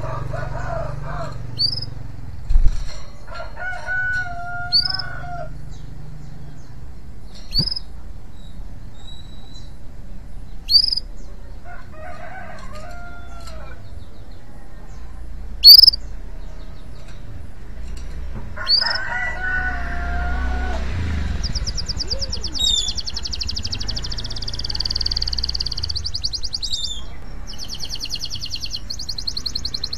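Male domestic canary in breeding condition. It gives short, sharp, rising chirps every few seconds, then, about two-thirds of the way through, breaks into a fast trilled song phrase of rapidly repeated high notes. Lower, longer calls that sound like chickens or a rooster come in now and then.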